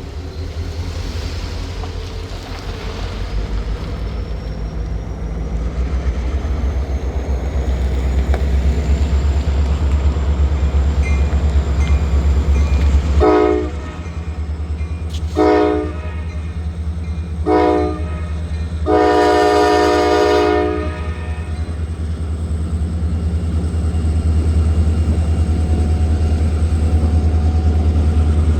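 Diesel-electric freight locomotives throttling up, their engines a steady heavy rumble that grows louder over the first several seconds with a faint rising whine. The locomotive horn sounds three short blasts and then one longer blast as the train starts to move off.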